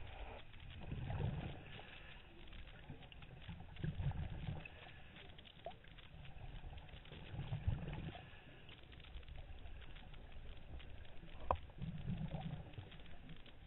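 Scuba diver's breathing heard through an underwater camera: a low rumbling rush of exhaled bubbles every three to four seconds, with a single sharp click about eleven seconds in.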